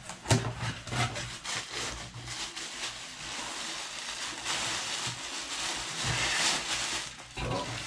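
Packaging being handled: cardboard box flaps opened with scattered crackles, then the printed wrapping of a package rustling and crinkling as it is pulled from the box, loudest a little past the middle.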